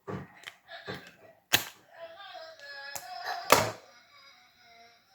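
Clicks and knocks of small items being handled while a nebulizer and its Dekasan dose are prepared, about six over five seconds, with the loudest about three and a half seconds in. Faint music plays in the background.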